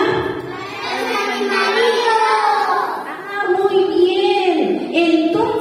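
Children singing a song, with held and gliding notes.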